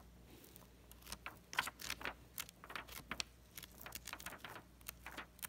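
Pages of a roughly 120-year-old book being leafed through by hand, the old paper rustling and crackling in a quick run of short, crisp sounds that starts about a second in.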